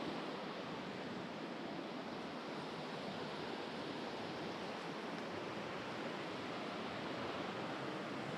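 Steady, even rush of water from a cascading mountain stream and waterfall.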